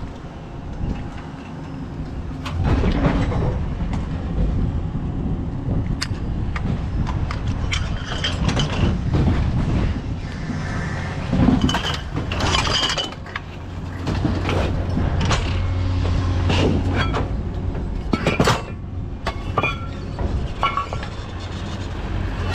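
A vehicle engine running with a steady low hum, under many irregular metallic clinks and rattles, like loose scrap metal shifting and knocking.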